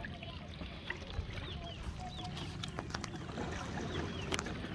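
Open-air ambience aboard a small wooden boat on the water: a steady low rumble of wind and water, with a few small knocks against the boat. Faint short high chirps are scattered through it.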